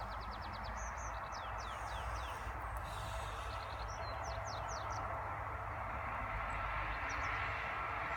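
Small birds chirping in quick series of short notes during the first few seconds, with a few more chirps near the end, over a steady hiss-like background noise.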